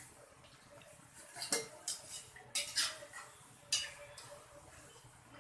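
Metal utensil clinking and scraping against a metal kadai, a few separate knocks while frying boondi in oil.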